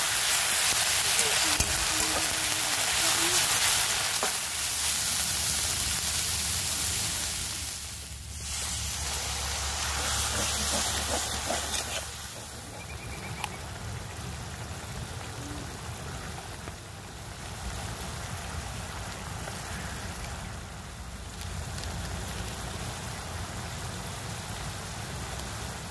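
Chopped onions, green chillies and ginger-garlic paste sizzling in hot mustard oil in an iron kadai, stirred with a metal spatula. The sizzle is loudest in the first several seconds, dips about eight seconds in, and is quieter after about twelve seconds.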